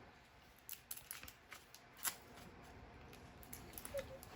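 Faint, scattered clicks and rustles of small plastic toy pieces and packaging being handled.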